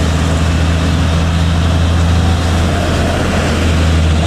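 A vehicle engine running with a steady low drone that holds one pitch, under a constant haze of road noise.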